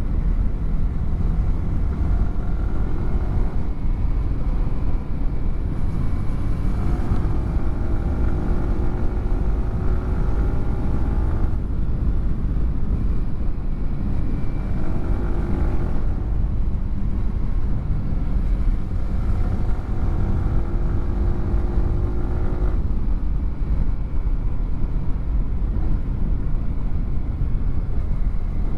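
Yamaha R15 V4's single-cylinder 155 cc engine through a WRX GP3 aftermarket exhaust, ridden under acceleration. The revs climb and fall away sharply three times, about every five seconds, as it shifts up through the gears, over a heavy low rumble.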